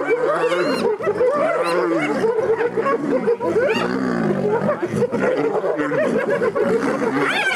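A dense, continuous chorus of overlapping calls from spotted hyenas and lions mobbing a kill: high calls sliding up and down in pitch, over deeper calls that repeat about once a second.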